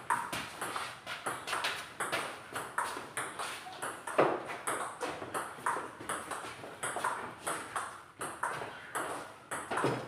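Table tennis rally: the celluloid ball clicking in a steady back-and-forth, bounces on the table alternating with hits off the paddles, about two to three a second, with one louder hit about four seconds in.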